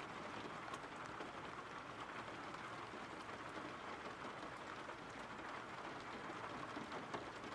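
Soft, steady rain: an even hiss with a few faint scattered drop ticks.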